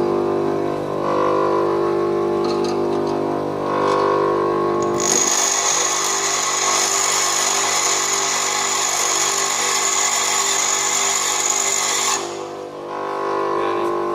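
Bench grinder motor running with a steady hum. About five seconds in, an HSS lathe tool bit is pressed against the grinding wheel, giving a loud hiss with a high steady whine that lasts about seven seconds and cuts off suddenly when the bit is lifted away.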